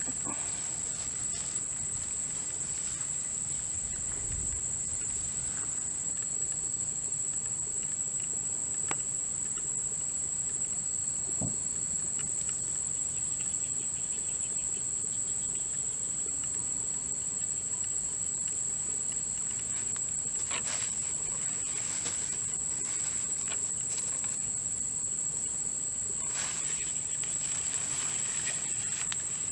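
Insects trilling as one continuous high-pitched drone, with a fainter pulsing trill partway through. A few brief knocks and rustles are heard over it.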